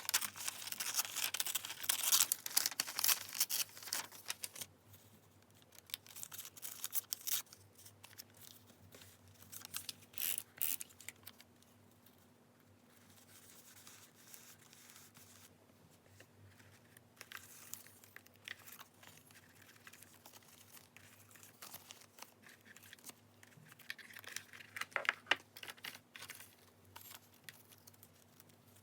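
Close-miked paper handling: sheets and paper scraps rustling and crinkling, with some tearing. It is densest in the first few seconds, then comes in scattered short rustles, with another burst about 25 seconds in.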